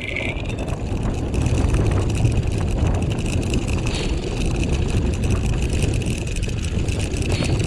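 Wheeled dryland dog rig rolling along a dirt trail behind a running four-dog team: a steady rumble of wheels and frame with wind buffeting the microphone.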